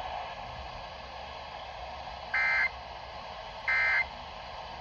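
Emergency Alert System end-of-message code: two short, shrill digital data bursts a little over a second apart, over steady hiss, signalling that the alert message is over.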